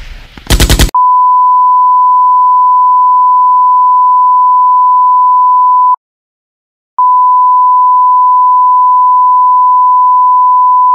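A short loud clipped burst in the first second, then a steady high-pitched censor bleep, a single pure tone that runs about five seconds, cuts to dead silence for a second, and starts again.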